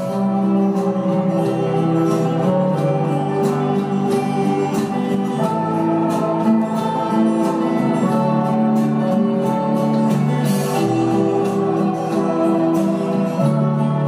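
Guitar music playing through a Samsung UE43TU8072 TV's built-in speakers, very loud. It is clear in the mids and highs but has almost no bass.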